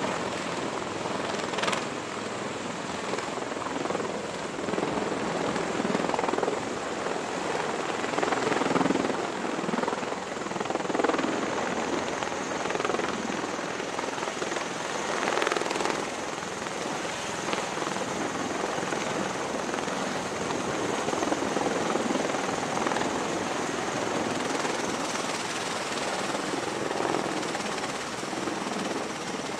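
V-22 Osprey tiltrotors running at close range as they hover and lift off: dense rotor noise that swells and fades every few seconds, with a thin high turbine whine above it.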